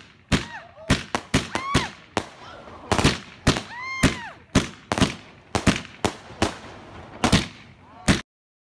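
Fireworks going off in a rapid, irregular string of sharp bangs, roughly two or three a second, with a few short whistling tones that rise and fall between them. The sound cuts off suddenly just after eight seconds.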